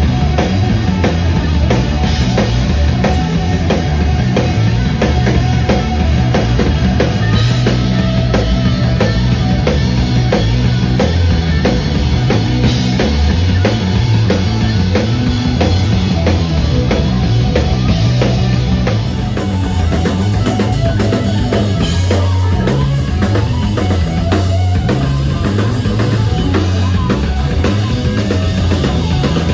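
Live rock band playing loud: electric guitar over a full drum kit keeping a steady, busy beat with heavy bass drum.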